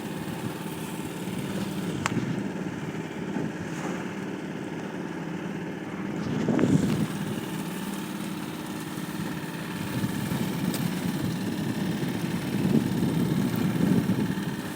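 Small sailboat's outboard motor running steadily under way, a continuous drone with a swell of louder rushing noise about six and a half seconds in and again near the end.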